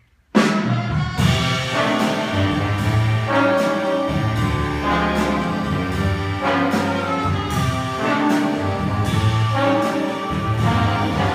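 Jazz big band with brass and saxophones, coming in together all at once about a third of a second in and playing on loud.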